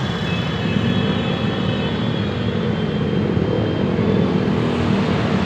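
Road traffic: a steady rumble of engines and tyres from passing vehicles, with no sharp events.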